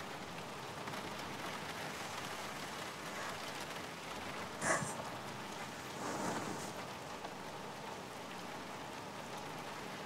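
Steady rain falling on a car's roof and windows, heard from inside the car. Twice about halfway through, a short sniff comes from a crying woman.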